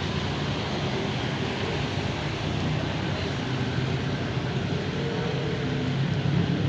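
A motor vehicle's engine running steadily under a continuous hiss, slowly getting louder toward the end.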